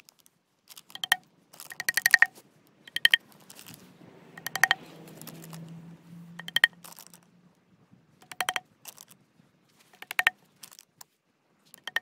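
Small hammer tapping nameko spawn plugs flush into drilled holes in a cut log: short groups of quick, ringing taps about every one and a half to two seconds.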